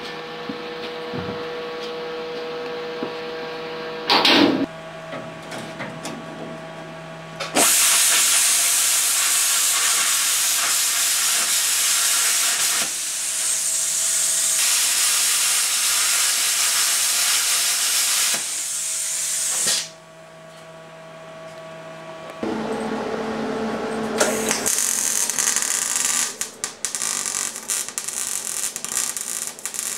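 Electric arc welding on rusted steel body panels, heard as a harsh hiss. There is one long continuous weld of about twelve seconds, then a pause, then shorter welds that break into quick stuttering bursts near the end.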